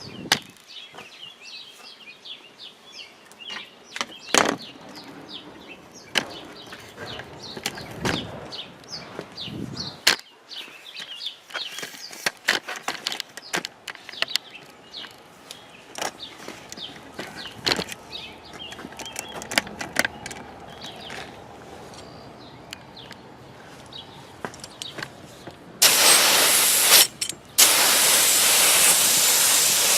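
Garden hose spraying water in a loud, steady hiss that starts suddenly near the end, cuts out for a moment and resumes. Before it, a quieter stretch of scattered small clicks and knocks with faint high chirps.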